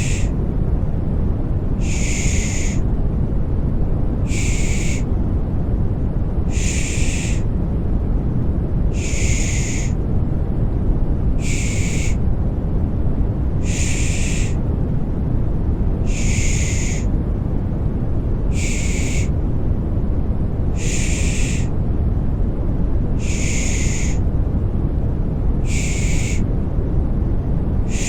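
Rhythmic shushing for soothing a baby: a short 'shh' hiss about every two and a half seconds, over steady, deep white noise.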